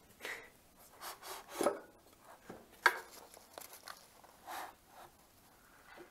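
Scattered light clicks, knocks and rubbing as bolts and parts are handled and fitted into a planer's top casting; the sharpest click comes about three seconds in.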